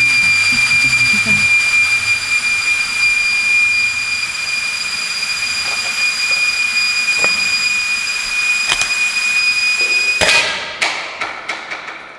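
Pressure being vented from a stainless steel brewery tank through a valve: a loud steady hiss with a high whistle, cutting off about ten seconds in. A quick run of sharp clicks follows as it stops.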